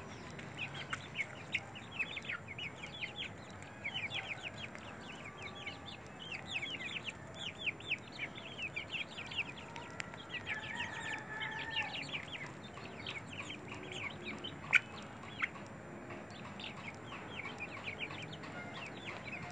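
A flock of chickens calling as they feed, a dense run of quick, high, falling chirps. A longer drawn-out call comes about 11 seconds in, and a couple of sharp knocks near 15 seconds.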